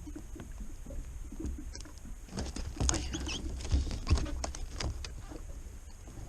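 Irregular clicks, knocks and short squeaks of fishing tackle being handled aboard a small boat, busiest in the middle, over a low rumble of wind on the microphone.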